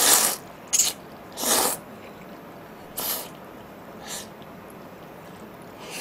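Noodles being slurped in a string of sharp, noisy sucks. The loudest come in the first two seconds, with smaller slurps about three and four seconds in.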